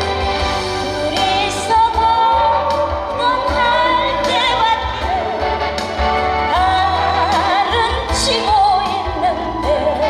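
A woman singing a Korean ballad over amplified backing music, the melody wavering with wide vibrato over a steady bass.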